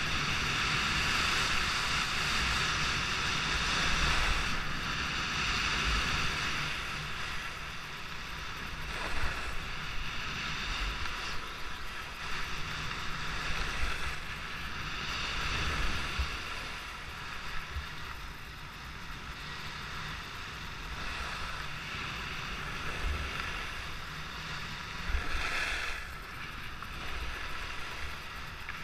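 Skis running and carving over groomed corduroy snow at speed, a steady scraping hiss that swells and fades, with wind rushing over the microphone.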